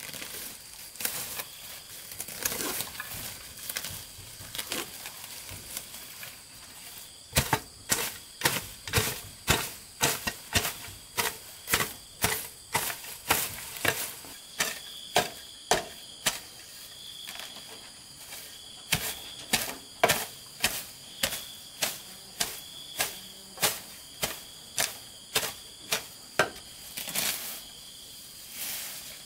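Grass being pulled and torn out by hand, rustling, then a hoe chopping into weedy soil in steady strokes about twice a second, pausing for a couple of seconds midway. A faint high steady trill runs underneath from about halfway.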